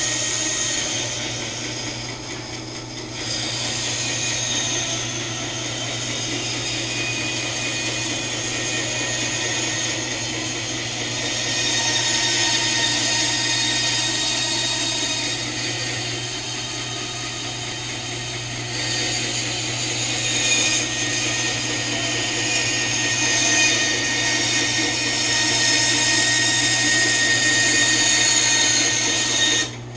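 WEN 10-inch bandsaw with a 3.5 amp motor running steadily, its blade cutting a sliver off a block of wood: a constant motor hum under the rasp of the cut. The sound cuts off sharply near the end.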